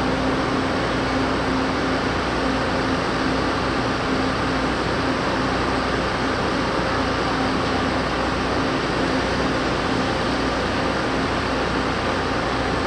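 Diesel railcar idling while it stands still: a steady engine and air-conditioning hum with one constant low tone.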